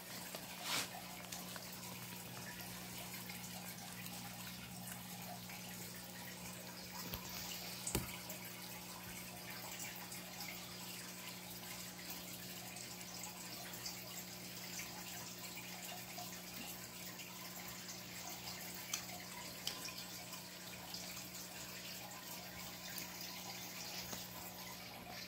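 Cats eating wet cat food: faint wet chewing and licking with many small ticks, and a sharper click about eight seconds in, over a steady low hum and hiss.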